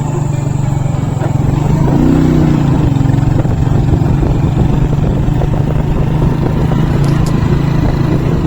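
An engine running steadily and loud, a low drone with no change in speed.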